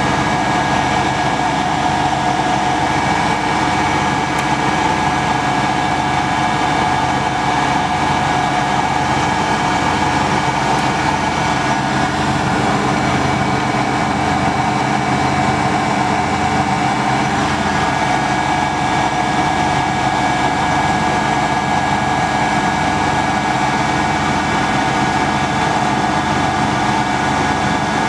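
Denford Viceroy 280 VS variable-speed lathe running under power, its motor and drive giving a steady whine over a slow, even low pulsing. The tone shifts slightly about twelve seconds in.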